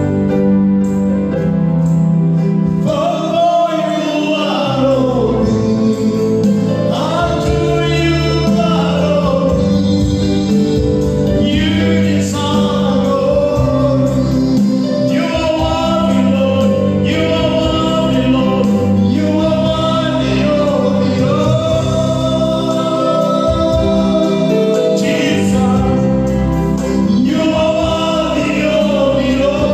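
Gospel worship music: voices singing over steady held chords.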